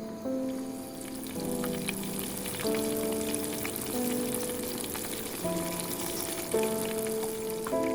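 Food frying in hot oil, a steady sizzle with fine crackling, under background music of held chords.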